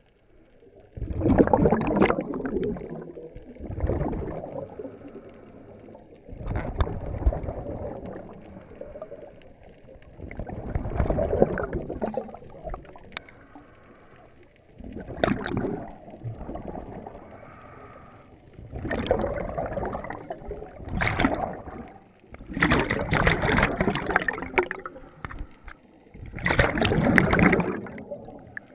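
A scuba diver breathing through a regulator underwater: a gurgling rush of exhaled bubbles every few seconds, each lasting a second or two, with quieter stretches between breaths.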